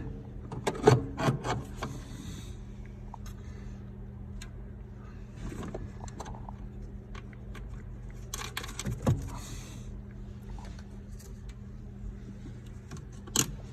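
Clicks, knocks and rubbing as the new accelerator pedal assembly is handled and fitted into place, with a cluster of sharp clicks near the start and scraping a few seconds later. A steady low hum runs underneath.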